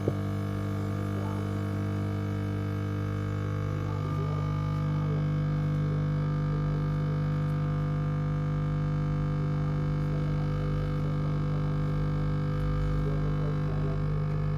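Small electric air compressor running steadily with a strong, even motor hum. The hum's tone shifts slightly about four seconds in.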